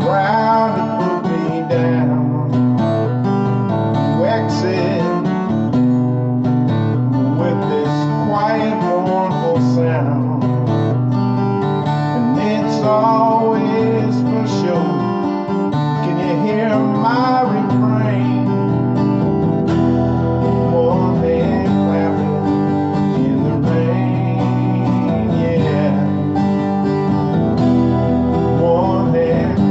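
Music played on acoustic guitar, plucked and strummed at a steady level, with a melody line over the chords.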